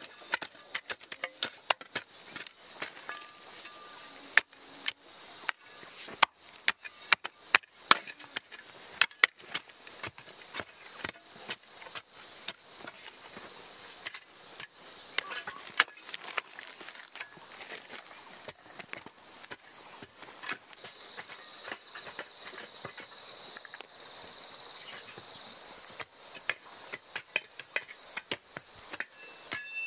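Many irregular sharp knocks and clicks, several a second at times, like hand work with tools. A faint steady high tone comes in about two-thirds of the way through.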